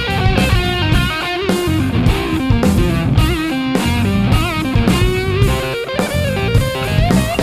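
Overdriven electric guitar playing a lead line with string bends and vibrato over a drum kit and bass, as a full rock band track.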